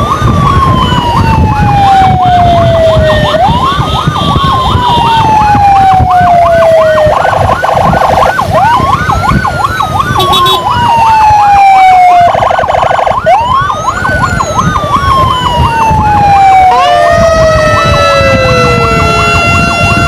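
Emergency sirens of an ambulance convoy. A wailing tone rises quickly and falls slowly, four times, over a faster yelping siren. There are two short buzzing blasts about 7 and 12 seconds in, and a steady held tone near the end, with motorcycle engine and road rumble beneath.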